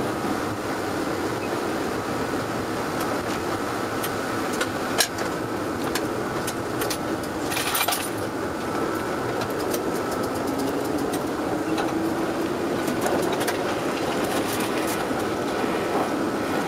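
Train running through station points and crossings: a steady running rumble and rattle, with the wheels clicking sharply over switch frogs and rail joints, the clicks coming more often in the last few seconds.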